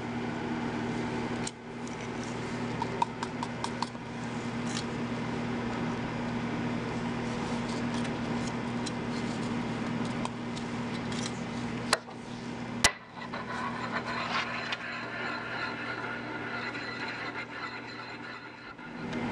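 Glass pestle grinding and scraping powder in a glass mortar, with scattered light clinks of glass on glass, over a steady low hum. A single sharp click stands out about two-thirds of the way through.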